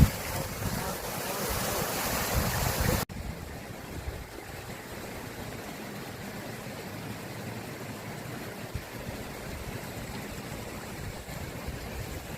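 Rushing water of a waterfall, a steady hiss; about three seconds in it cuts off abruptly to a quieter stretch of the same water noise.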